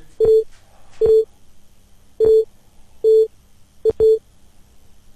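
Short electronic beeps, one steady mid-pitched tone each, sounding six times at uneven intervals, the last two close together, as Adobe Character Animator's body tracker calibrates.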